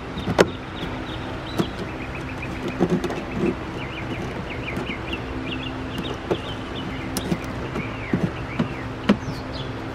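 A couple of sharp plastic clicks right at the start as the car's cowl panel is pressed down into place. Then a bird chirps in quick repeated notes for several seconds over a steady low hum.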